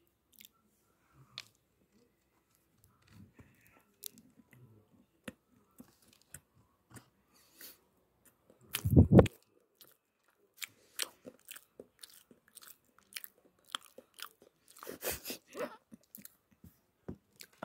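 Close-up chewing of bread: soft, scattered mouth clicks and smacks. One louder thud comes about nine seconds in, and a denser run of chewing smacks follows about fifteen seconds in.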